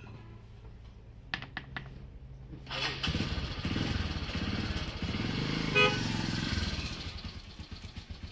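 A motor vehicle passes close by: its engine noise swells about three seconds in and fades near the end, with a short horn beep a little before six seconds.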